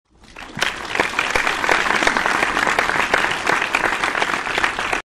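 Audience applause, many hands clapping. It swells in over the first second and cuts off abruptly near the end.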